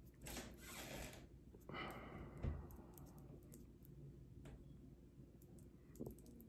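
Quiet sounds of a joint's tip being held in a lighter flame: soft breathing and faint clicks, with a brief low thump about two and a half seconds in.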